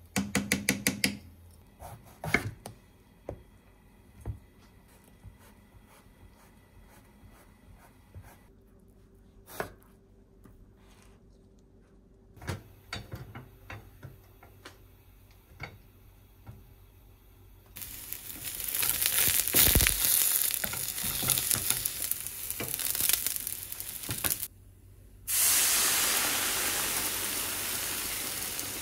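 Eggplant pieces frying in oil in a frying pan, sizzling loudly in two spells in the second half. Before that, a quick rattle of granules being shaken over a pot, then scattered light taps and clicks of pans and utensils.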